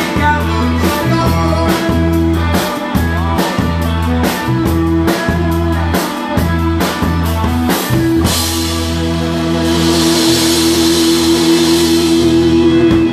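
Live band with drum kit and guitar playing rock and roll, with steady hard drum strokes. About eight seconds in the beat stops and the band holds a closing chord under a swelling cymbal wash.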